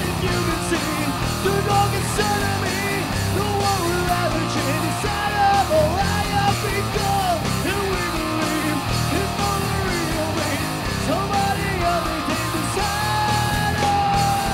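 Live hard rock band playing: electric guitar, electric bass and electronic drum kit, with a male lead singer singing and yelling the vocal line over them.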